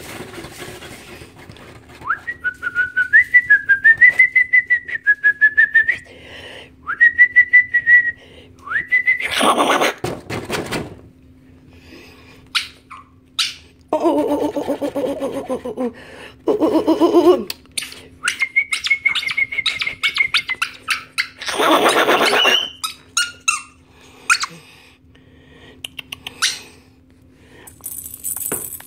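A person whistling in warbling runs, a wavering high tone with a fast flutter, twice. Between the whistles come a couple of short hissing bursts and a lower, wavering pitched sound.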